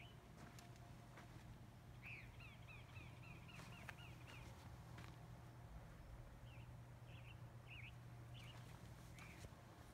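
Faint bird calls: a quick run of about eight short chirps about two seconds in, then a few scattered chirps later, over a low steady hum.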